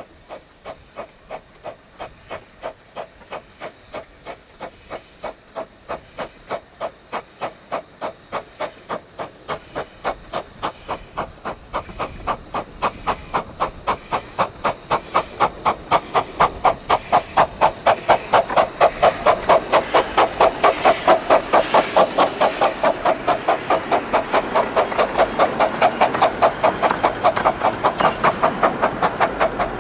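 15-inch gauge steam locomotive pulling a train away, its exhaust chuffing in an even beat that quickens from about two beats a second to about three and grows louder as it approaches. Near the end the coaches rolling past add a rushing rumble under the chuffs.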